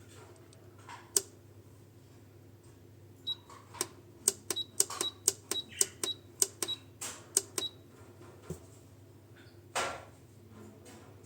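Control buttons on a Hibrew G3 coffee grinder pressed in a quick run of about fifteen clicks, most answered by a short high beep, as the grind time is set. There is a single click before the run and a duller knock after it.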